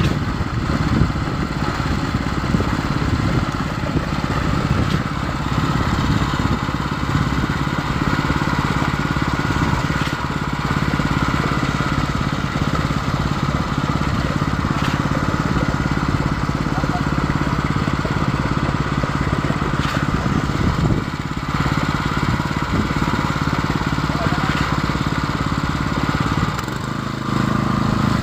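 Concrete pump's engine running steadily under load, with faint knocks about every five seconds. The engine note changes near the end.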